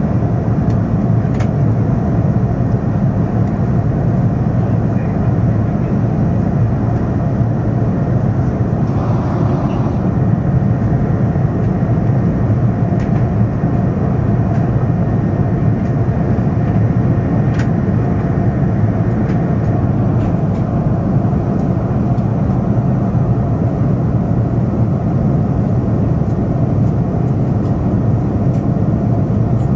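Steady cabin noise of a Boeing 787-10 in the climb after takeoff, a deep even rumble of its GEnx-1B turbofans and the airflow past the fuselage, heard from a window seat beside the engine.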